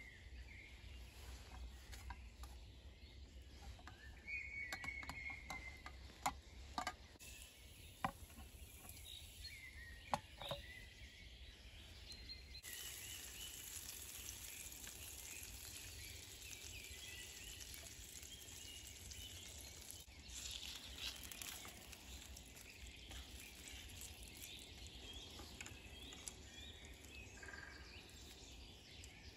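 A few light clicks and taps as potato slices are handled on a wooden cutting board, then, from a little under halfway, a soft steady hiss as the slices fry in a small frying pan over a wood stove. Birds call faintly in the background.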